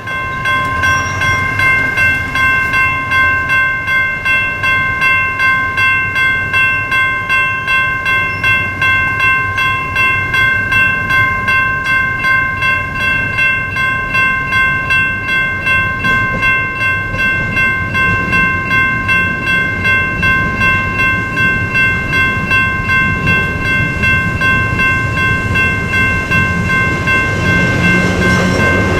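Railroad grade-crossing bell ringing steadily, about two strikes a second, while a train rumbles over the rails and grows louder near the end.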